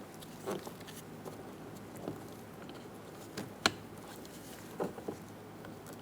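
Wiring connectors being handled and plugged into a Mazda 3 power window and door lock switch: scattered soft plastic rustles and knocks, with one sharper click a little past halfway as a connector snaps home.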